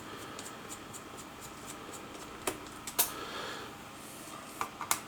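Small handling sounds while the bottom screws of an Asus laptop are taken out and sorted: faint scratching, with a few sharp clicks about two and a half and three seconds in, and a short cluster of clicks near the end.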